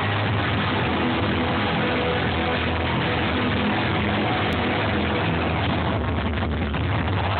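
Loud din of a packed basketball-arena crowd over a low, steady droning rumble from the arena's sound system.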